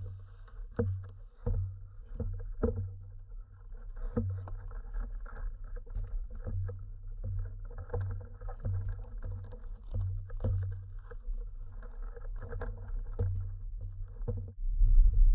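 Muffled footsteps on a dirt trail, roughly one to two steps a second, over a steady low hum. Near the end the sound changes abruptly to a louder low rumble.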